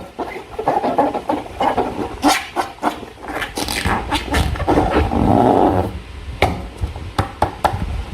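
Slime being handled, with wet, sticky squishing in patches of about a second each and many short sharp clicks and taps in between.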